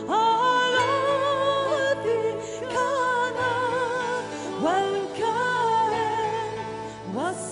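Live worship band music: a singer holds long, wavering notes, several starting with an upward slide, over steady keyboard chords.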